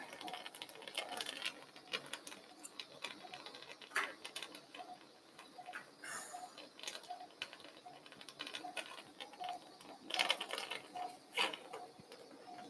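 Quiet operating-room sound: faint clicks and rustles of arthroscopic instruments being handled at the joint, a little louder near the end. Under them a short, faint monitor beep repeats about every half second.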